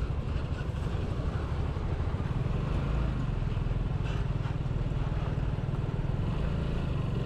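Suzuki Gixxer SF 155's single-cylinder engine running steadily while riding, under wind and road noise.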